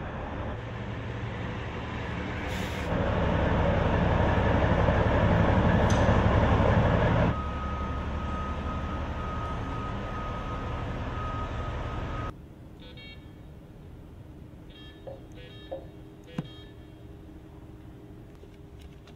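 Semi-truck diesel engine running with a low rumble that gets louder for a few seconds, then carries a steady high whine. After a sudden cut about twelve seconds in, only a much quieter hum is left, with a few light clicks and knocks.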